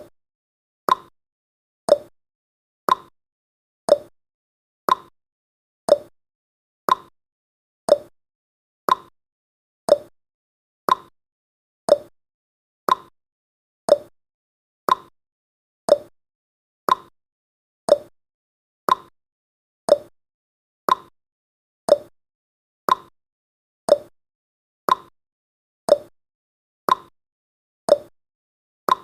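Countdown timer's ticking sound effect: one short, sharp tick every second, each dying away quickly, with silence between.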